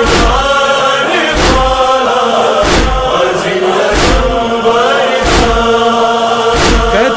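Noha chanting by several voices over a steady drone, with a large tabal drum struck in a slow, even beat about once every 1.3 seconds.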